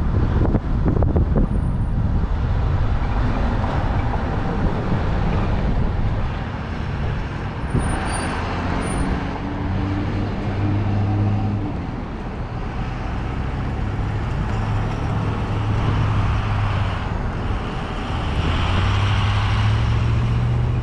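Road vehicle engine running at low speed in town traffic, with wind rumbling on the microphone at first. The engine note holds steady, then rises near the end as the vehicle speeds up.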